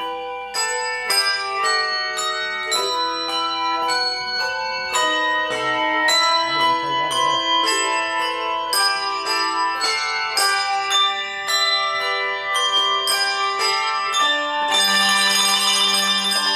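Handbell choir ringing a tune: a steady run of struck bell notes, each ringing on and overlapping the next. Near the end the sound thickens into a loud, dense held chord with a rapid flutter.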